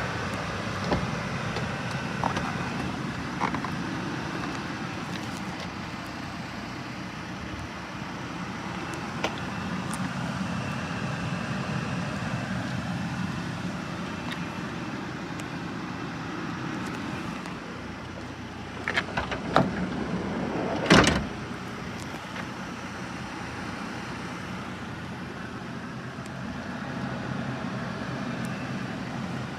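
Nissan Dayz Roox kei car standing with its engine running, a steady hum, with a few light clicks and a quick run of clicks ending in a louder mechanical clunk about twenty seconds in.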